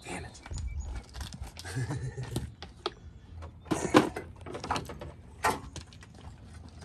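A series of sharp metal knocks and clanks from hand work on an engine and transmission sitting on a trailer. The loudest knock comes about four seconds in and a second strong one a moment later.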